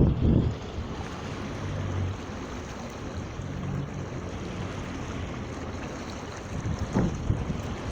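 Water rushing past the hull of a small sailboat under way, with wind buffeting the microphone at the start and again in a short gust near the end.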